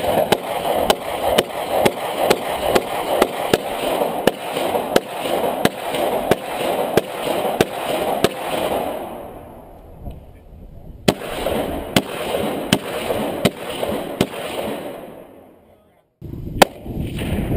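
Rapid gunfire from several firearms shooting at a motorcycle helmet target: sharp shots about three a second for around nine seconds, then after a short pause a second run of about seven shots.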